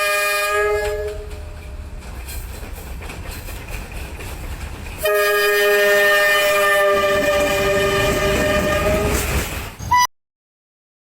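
Train horn sounding a chord of several notes, breaking off about a second in. The train then rumbles and clatters on the rails, and the horn gives a second, longer blast from about halfway through. The sound cuts off abruptly near the end.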